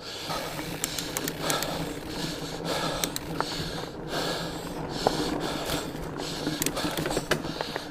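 A mountain biker breathing hard while pedalling up a climb, about one heavy breath a second, with a few sharp ticks from the bike and trail.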